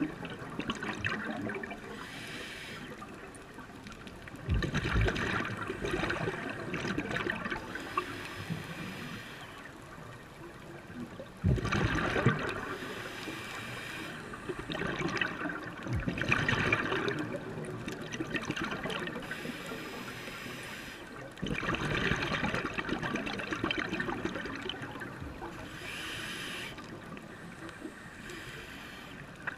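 Scuba diver breathing through a regulator underwater: a gurgling rush of exhaled bubbles about every five seconds, with a softer hiss between the breaths.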